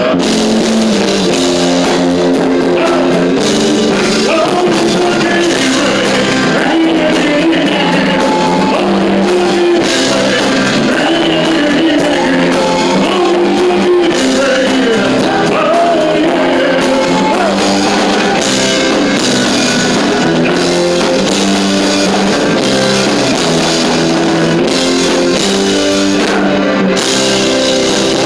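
Live rock-and-roll band playing, with drums and guitar, as a male singer performs into a microphone.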